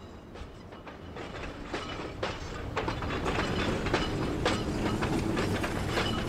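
Tram running along its street rails: a low rumble with wheels clattering and clicking over the track, fading in and growing louder over the first few seconds.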